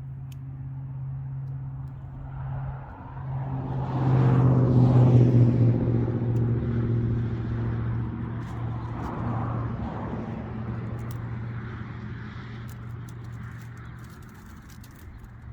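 A vehicle or machine engine running steadily, working harder and louder for a couple of seconds from about four seconds in, then settling back.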